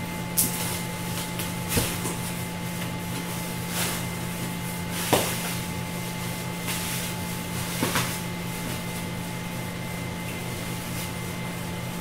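Half a dozen short knocks and clicks, as of objects being handled and set down, over a steady low electrical hum.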